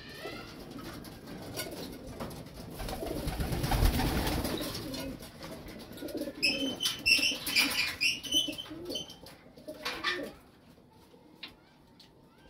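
Homing pigeons cooing low. A rushing noise swells and fades about three to five seconds in, then a run of sharper, higher calls comes from about six to nine seconds in.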